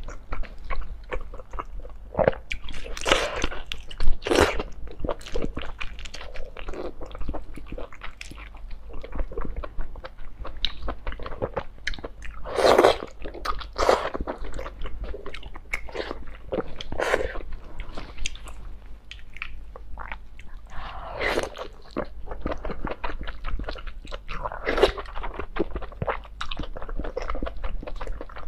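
Close-miked chewing and biting of braised octopus: irregular wet, sticky mouth clicks and smacks, with a few louder sucking bites scattered through.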